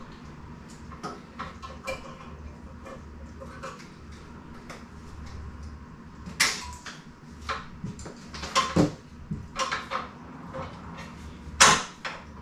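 Scattered clinks and knocks of metal bike parts being handled and fitted while assembling an e-bike's rear rack and fender, with three louder knocks in the second half. A low steady hum runs underneath.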